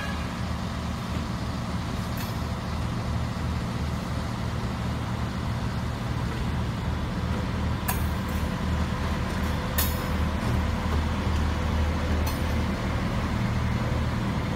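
Railbus engine running with a steady low drone as the railbus moves along the track, with a few short sharp clicks.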